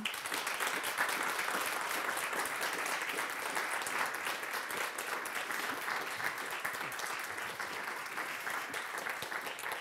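Audience applauding, dense steady clapping that starts at once and begins to thin out near the end.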